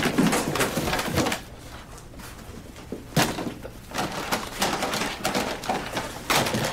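Cardboard boxes and loose objects being shuffled and knocked about on an office floor, with a sharp knock about three seconds in.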